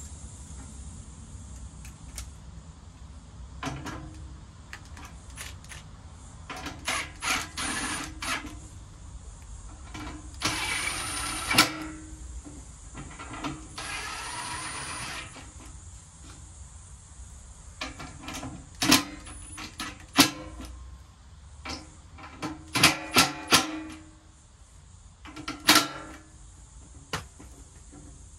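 Tools and metal parts clinking and knocking as an air-conditioner fan motor and its sheet-metal blower housing are taken apart by hand, with sharp knocks loudest in the second half. A cordless drill-driver runs in two bursts of a second or two each, about ten and fourteen seconds in.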